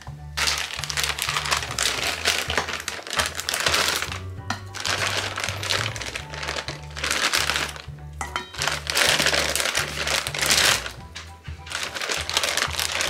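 Plastic bag crinkling in three long spells as raw chicken pieces are handled and dropped into a steel bowl, over background music with a steady bass line.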